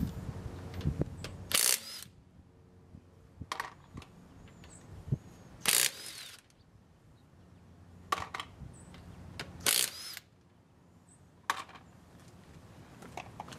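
Craftsman C3 19.2-volt cordless 1/2-inch impact wrench hammering lug nuts torqued to 85 ft-lb loose, in three short bursts about four seconds apart, with shorter, fainter sounds between them.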